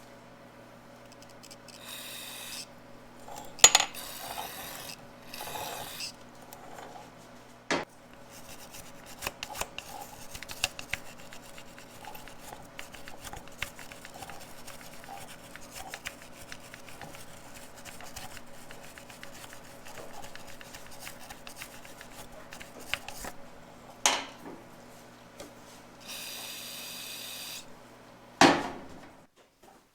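Hand tools working on metal engine parts: rubbing and scraping with many light metallic clicks and clinks. Four sharp knocks stand out, the loudest a few seconds in and another near the end.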